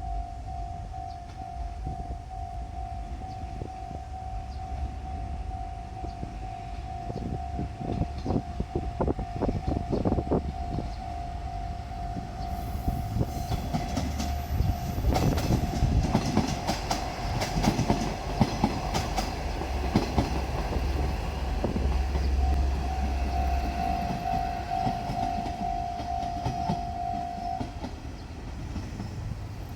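Japanese level-crossing warning bell ringing in a steady, even repeated ding while a diesel railcar rolls over the crossing: low engine rumble, and wheels clacking over the rail joints from about a quarter of the way in, loudest around the middle. The bell stops shortly before the end.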